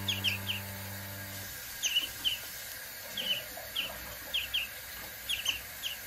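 Fledgling songbird chirping: short, high, down-slurred calls, often two in quick succession, repeated about a dozen times. A soft music bed fades out in the first second and a half.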